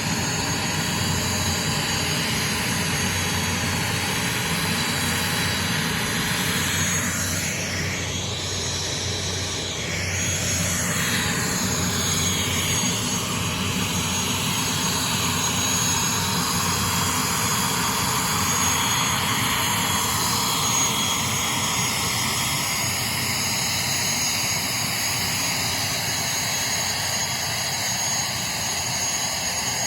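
Aircraft engines running steadily: a constant loud whine and rush of engine noise, with thin steady high tones over a low hum.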